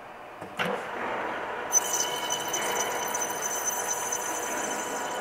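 Metal lathe switched on with a clunk about half a second in, then running with its chuck spinning; from about two seconds in a high steady whine joins the machine noise.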